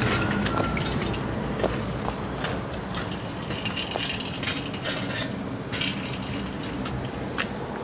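Street background: a steady low rumble of traffic with scattered small clicks and clinks.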